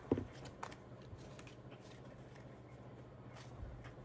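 Light rustling and scattered soft clicks of paper and cash being handled at a table, over a low steady room hum.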